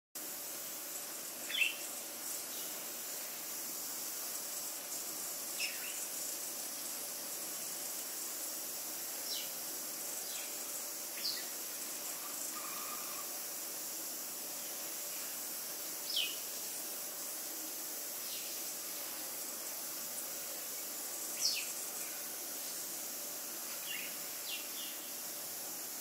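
Short, sharp bird chirps, about ten of them scattered a few seconds apart, over a steady high-pitched insect hiss.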